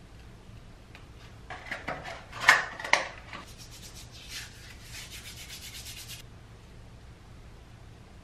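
Scratchy rubbing of hands close to the microphone: a few strokes about two to three seconds in, then fainter, finer rubbing that stops about six seconds in.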